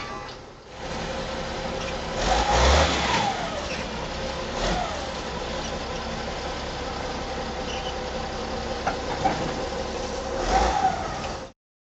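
Diesel engine of a front-end wheel loader running steadily and revved up briefly three times: about two seconds in, nearly five seconds in and near the end. It cuts off suddenly just before the end.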